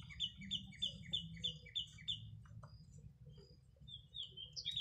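A bird chirping in a fast, even series, about four chirps a second, breaking off for about two seconds midway and starting again near the end, over a low steady hum.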